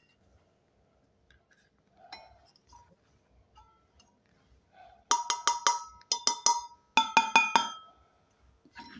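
A stainless steel insulated tumbler tapped in quick runs, about fifteen sharp taps in three bursts starting about five seconds in, each tap ringing briefly like a small bell. Faint handling sounds come before the tapping.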